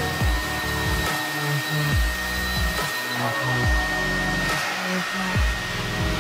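Carpet extractor's vacuum motor running steadily with a constant high whine as the wand is drawn over wet car carpet. Background music with a sliding bass line plays underneath.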